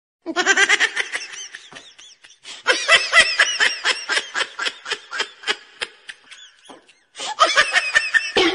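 High-pitched laughter in quick, rhythmic ha-ha pulses, several a second, coming in three bouts with short breaks between them.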